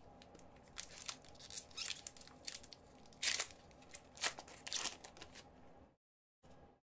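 Foil wrapper of a hockey card pack being torn open by hand: a run of short crinkling rips, the loudest about three seconds in and another a second later.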